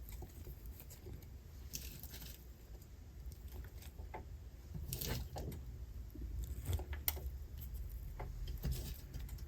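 Shredded lettuce being scattered by hand onto tostada shells: soft, intermittent crinkly rustles, a few seconds apart, over a faint low hum.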